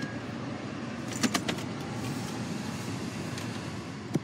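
Steady low rumble inside a car with the engine running. A few sharp clicks come just over a second in, and another comes near the end.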